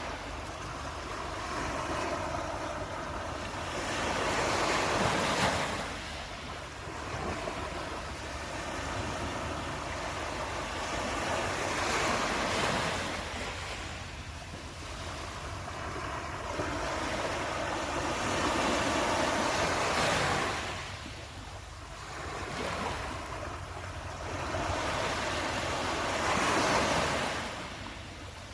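Ocean surf: waves rolling in, the rush of water swelling and fading about every seven to eight seconds over a steady low rumble.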